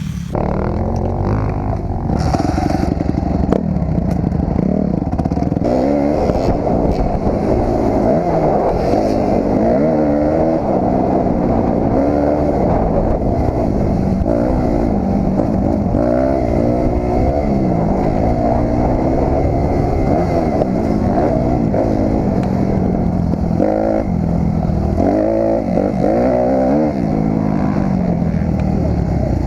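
Kawasaki KX250 two-stroke dirt bike engine being ridden hard, its pitch climbing and falling again and again through the gears.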